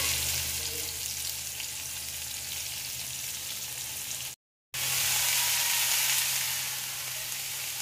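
Oil sizzling steadily as bitter gourd slices fry in a kadai. The sound cuts out briefly just after four seconds in, then resumes as soybean chunks and potato pieces fry.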